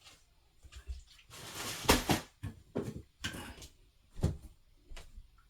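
Hair product bottles being handled: several knocks as containers are picked up and set down, with short rustling or hissing noises in between.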